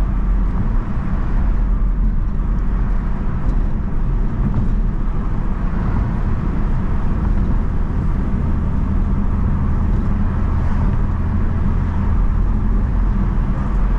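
BMW F82 M4's twin-turbo inline-six and road noise heard from inside the cabin, cruising at a steady, even rumble with no revving.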